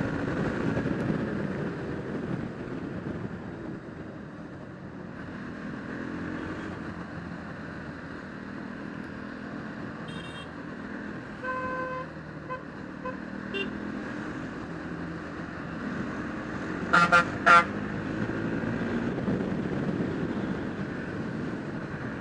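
Motorcycle engine running on the move, its revs rising and falling, with road noise. Short vehicle horn toots sound around the middle, and two loud horn honks come about three quarters of the way through.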